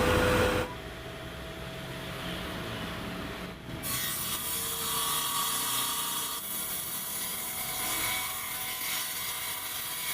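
Table saw cutting wood to form the rebate of a timber door frame. The cutting noise is loudest in the first half second, drops, then fills out again about four seconds in as the cut continues.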